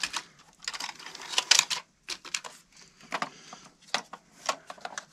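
Plastic wrapping rustling, with irregular small clicks and taps, as a Lionel O-gauge model locomotive is handled and lifted out of its foam packing tray.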